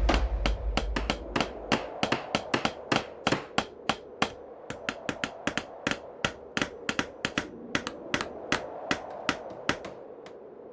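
Hammers striking wood in a quick, irregular run of sharp knocks, several a second, thinning out and stopping near the end. Low background music fades out in the first couple of seconds.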